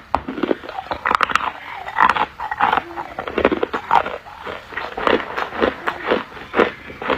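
Ice being chewed and crunched between the teeth: a run of sharp, irregular crunches, roughly two a second.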